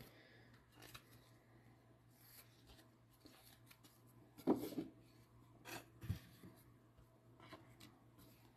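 Faint rustling and rubbing of plastic as a baseball card in a soft penny sleeve is slid into a rigid plastic top loader, with a short louder scrape about halfway through and a soft bump just after.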